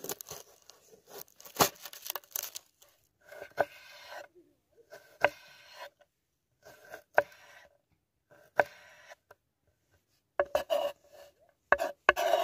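A kitchen knife slicing through garlic on a wooden chopping board: each cut is a short crunchy rasp ending in a sharp knock of the blade on the board, about one every one and a half to two seconds, with a quicker run of chops near the end.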